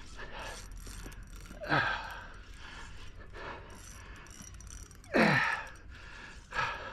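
A man sighing twice, breathy exhalations that fall in pitch, about two seconds in and again about five seconds in, with a few fainter breaths between.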